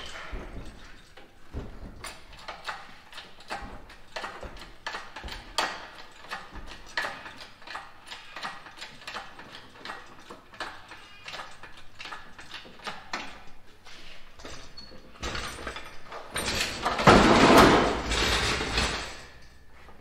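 Tools and metal parts at work on a truck being stripped: irregular metallic clicks and knocks, then a loud noisy burst lasting about three seconds near the end.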